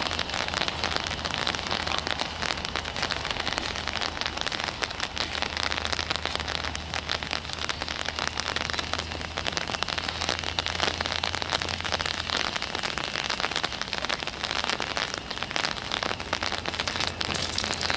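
Steady light rain pattering, a dense crackle of fine drops, over a faint low steady hum.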